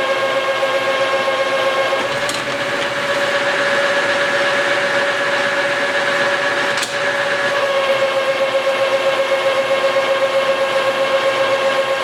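Metal lathe running under power, taking a roughing cut on a shaft: a steady machine whine with a strong single tone and its overtones. Two brief clicks, about two seconds in and near seven seconds, and from about eight seconds the sound pulses quickly.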